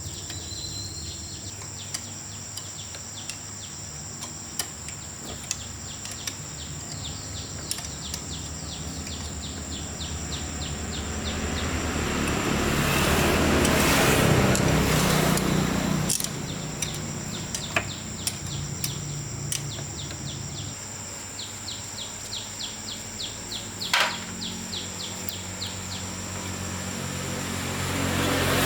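Outdoor ambience: a steady high insect drone with rapid bird or insect chirps, a broad noise swell that rises and falls about halfway through, and a few sharp clicks.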